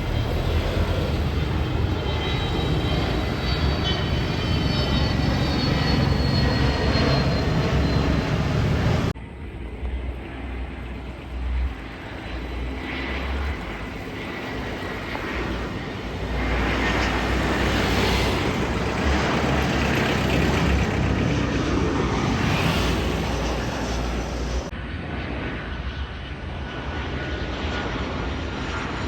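Airliner engine noise: a steady broad rumble with a faint high whine, broken by two abrupt cuts, about a third of the way in and near the end, where the sound changes suddenly.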